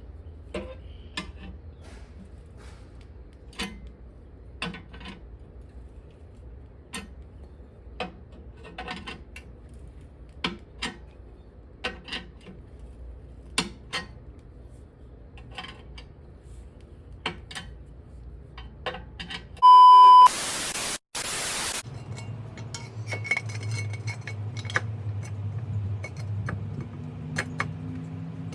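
Sharp metallic clicks, roughly one a second, from working a small car jack to lift the car. About 20 seconds in, a short beep and a loud burst of hiss cut in, and a low hum follows.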